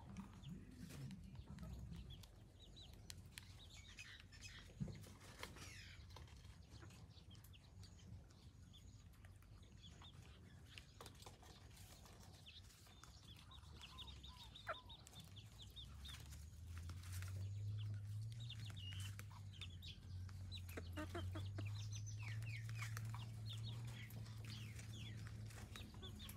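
Junglefowl in a pen clucking softly in short, scattered calls. A low steady hum joins about two-thirds of the way through and stays to the end.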